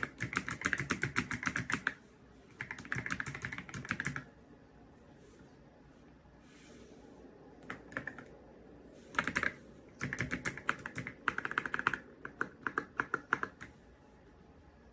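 Typing on a YUNZII X98 gasket-mounted mechanical keyboard with pre-lubricated Snow switches. Runs of fast keystrokes come in bursts of one to two seconds, with a longer pause around the middle and a few single key presses before typing picks up again.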